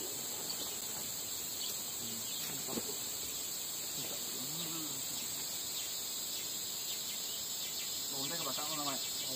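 Steady, high-pitched chorus of forest insects, shrilling without a break, with a few faint snatches of voices now and then.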